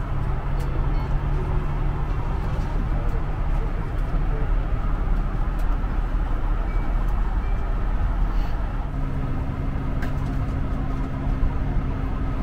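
Steady rush of air and low hum inside a Bombardier CS300 airliner cabin parked at the stand, its ventilation running. A second low tone joins about three-quarters of the way through.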